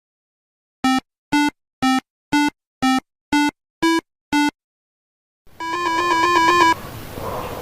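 Eight short electronic beeps of the same pitch, about two a second, then from about two-thirds of the way in a fast warbling trill between two pitches over a hiss, like a phone ringtone.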